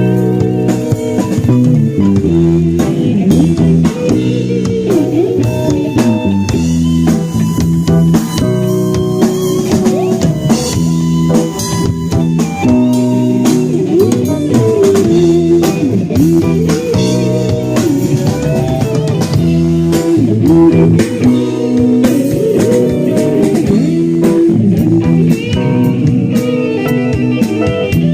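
A live band at a sound check playing an electric-guitar-led, blues-flavoured piece over a drum kit and bass guitar. The guitar plays lines with notes bent up and down.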